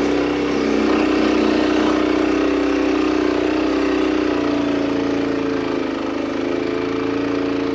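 Woodmizer LX25 sawmill's engine running steadily, its pitch holding nearly level with a slight rise about five seconds in.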